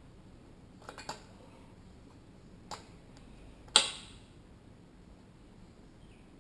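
Metal fork parts handled on the bench: a few light clinks, then one sharp metallic knock with a brief ring about four seconds in, as the damper is worked against the stuck valve body in the fork leg.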